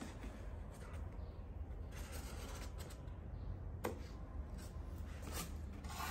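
Pen scratching on a corrugated cardboard box and the cardboard being handled, light scratching and rustling with one sharp click a little under four seconds in, over a low steady hum.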